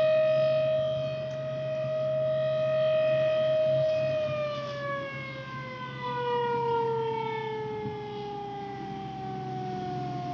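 Open-pit mine shift-change siren holding a steady wail, then about four seconds in it starts winding down, its pitch falling slowly and smoothly.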